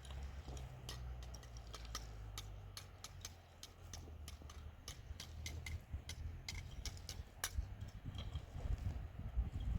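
Irregular sharp clicks and ticks, several a second, over a steady low rumble, with louder low thumps coming in near the end.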